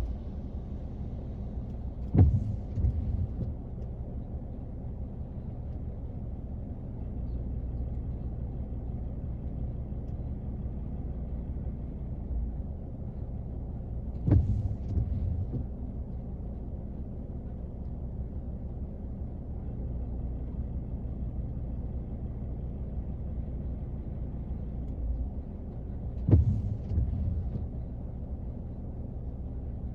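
Rain on a car's roof heard from inside the cabin, a steady low rumble. Three times, about twelve seconds apart, a sharp knock is followed by about a second of low thumps.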